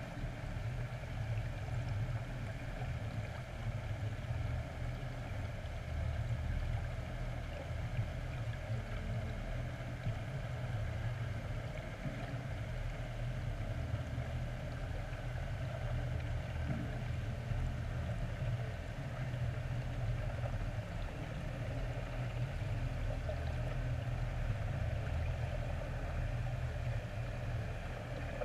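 Underwater ambience heard through a GoPro's waterproof housing: a steady, muffled low rumble with a faint hiss above it.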